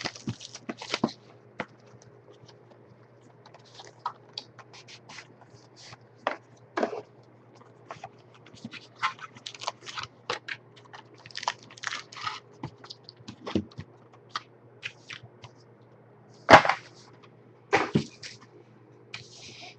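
Irregular rustling, scraping and small clicks of a trading-card box and its packs being opened and handled, with one sharp snap about three-quarters of the way through, over a faint steady low hum.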